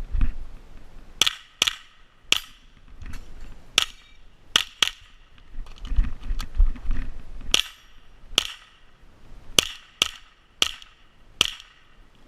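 About a dozen shots from a .22 rimfire mini rifle, sharp single cracks fired in short irregular strings, some as quick pairs about a third of a second apart, with pauses between. A low rumble runs under the shots between strings.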